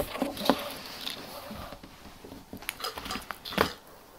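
Small plastic slime tub being twisted open by hand, its lid and sides clicking and knocking in scattered sharp ticks.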